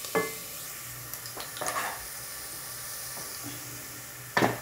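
Onions sizzling as they fry in oil in a pan, with a spoon scraping against the pan a few times, loudest near the end.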